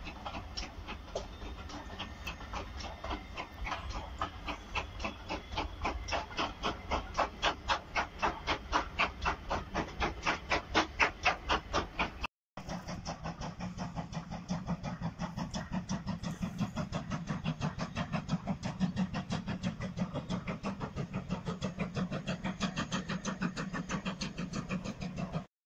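Steam locomotive working a passenger train, its exhaust beats coming evenly at about three a second and growing louder over the first half. After a brief break the beats carry on with a steady low hum beneath them.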